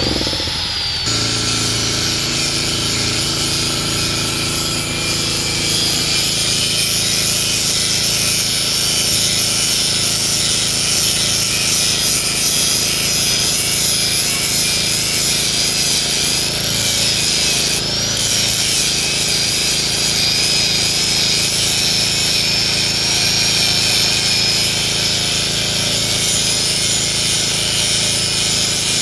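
Hitachi hydraulic excavator running steadily at working revs, a low engine drone under a high, slightly wavering whine, while it chips up oil palm trunks.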